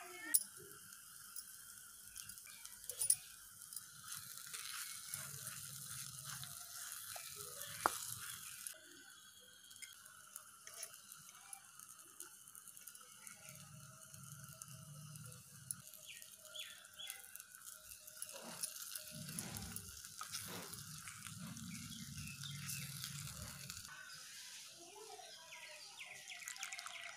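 Faint handling of small clay pots and a wooden spoon, with a few sharp clicks, over a steady high hum.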